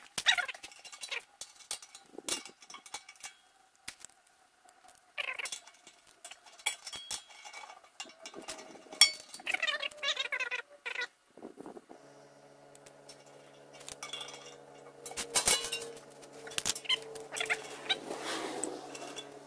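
Small metal pipe fittings and tools clicking and clinking as they are handled and set down on concrete. A steady low hum joins about two-thirds of the way through.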